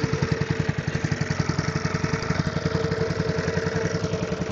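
Small boat engine running steadily at an even speed, with a rapid regular pulse and a constant hum.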